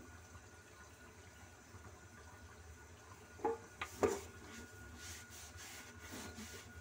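A few sharp knocks on a plastic sink drain trap, about three and a half to four seconds in, followed by rustling as hands work the pipe fittings, over a faint steady hum.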